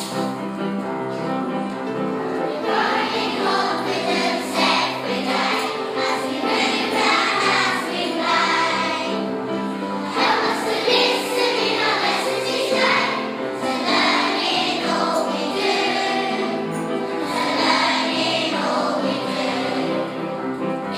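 A song sung by a choir over instrumental accompaniment.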